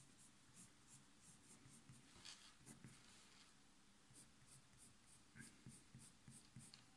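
Faint scratching of a coloured pencil shading on sketchbook paper in short, quick strokes, about three to four a second.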